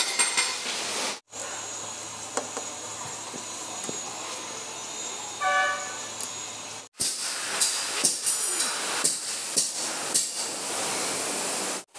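Clicks and knocks of plastic body panels being handled and pressed into place on a three-wheeler, over a steady workshop hiss, with one short beep about five and a half seconds in. The sound drops out briefly at edits about a second in, near seven seconds and near the end.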